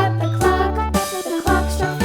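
Upbeat children's background music with a steady bass beat and bright melody notes.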